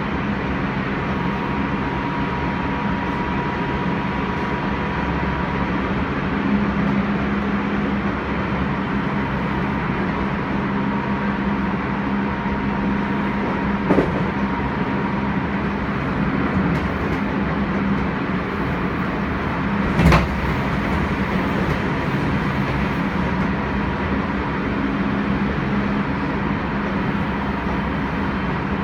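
Odakyu 2000 series electric train running at speed, heard inside the car: a steady running noise from the wheels and VVVF traction equipment, with a steady whine for the first few seconds. Two sharp knocks about 14 and 20 seconds in.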